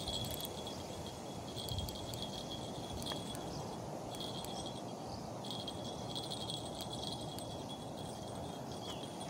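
Insect chirring in a thin, high, steady band that comes in stretches of a second or more with short gaps, over a low, even outdoor rush.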